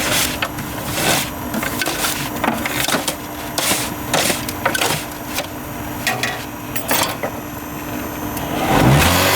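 Hollow concrete block making machine at work: irregular knocks and scraping over a steady hum. Near the end a motor starts up, rising in pitch, and keeps running.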